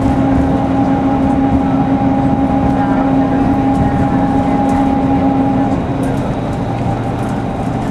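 Interior running noise of a Mercedes-Benz OC500LE city bus: a steady rumble with a steady high whine over it that cuts off abruptly about six seconds in.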